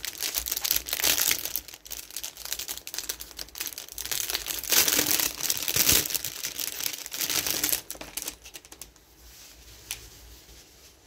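Thin clear plastic packaging crinkling and rustling as it is handled and pulled open to take out a folded cloth bag. It is loudest about halfway through and dies away after about eight seconds.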